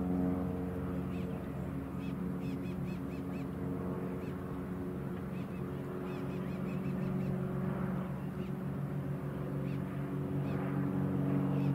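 Cessna 172 floatplane's piston engine and propeller droning steadily at high power during its run across the water on floats, growing somewhat louder near the end.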